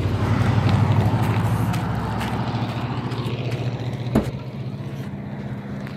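Minivan engine idling, a steady low hum, under rustling handling noise, with one sharp click about four seconds in as a door handle is worked.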